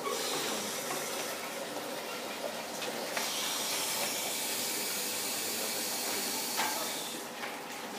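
Water running into a large aquarium, a steady hiss. It grows louder about three seconds in and eases off near the end.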